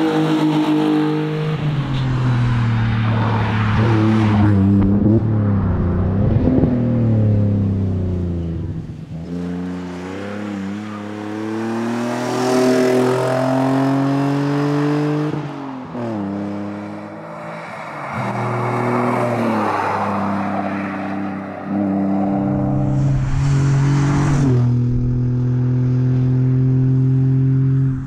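Jaguar S-Type X200 rally car's engine accelerating hard, its pitch climbing through each gear and dropping sharply at every upshift, as the car passes and pulls away. Several passes are edited back to back.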